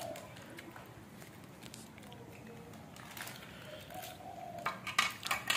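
Faint voices in a quiet room, with a few sharp clicks and taps near the end.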